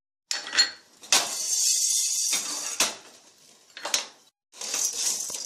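Dry chana dal poured into a dry pan, the hard grains rattling onto it in several bursts, with a few sharp clicks of the pan.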